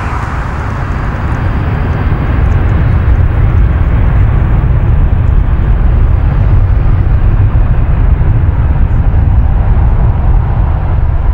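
Airbus A330 jet engines at takeoff thrust: a deep, steady rumble that grows louder over the first few seconds as the airliner rolls past and lifts off.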